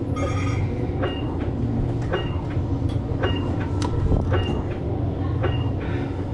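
Steady low mechanical hum of the ride's link-chamber ambience, with a short high chirp about once a second and scattered clicks.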